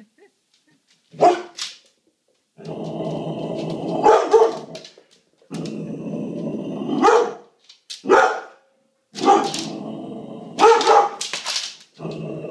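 A dog barking in short, sharp bursts, about eight times, at a toy dog moved toward it on a leash. Between the barks comes a steady, unchanging whir in stretches of about two seconds that start and stop abruptly.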